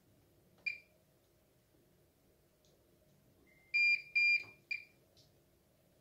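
Bosch Serie 4 washing machine's control panel beeping as its buttons are held to switch off the child lock. There is one short high beep under a second in, then a row of three beeps about four seconds in, the last one shorter.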